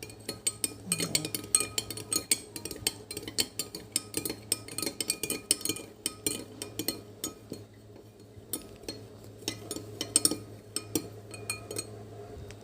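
Kitchenware clinking: a metal spoon and glass and dishes knocking together, many sharp clinks in quick irregular succession, some ringing briefly.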